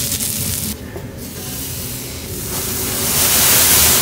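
Food sizzling and steaming on a hot steel teppanyaki griddle: a steady hiss that dips briefly about a second in, then grows louder over the second half.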